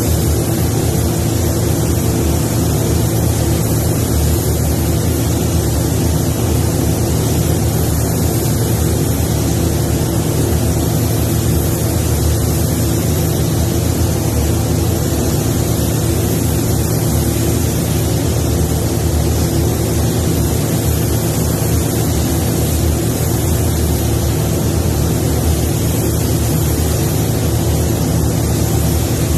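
Steady rushing air and motor hum of a paint booth's ventilation fans, running at a constant level with no breaks.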